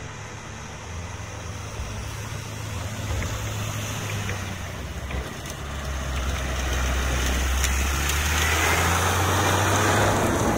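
Steyr CVT tractor's diesel engine running as it pulls a Hawe spreader toward the camera, growing steadily louder and passing close near the end.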